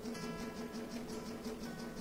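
Quiet background music: held notes over a fast, even ticking beat, with new notes coming in just after the start.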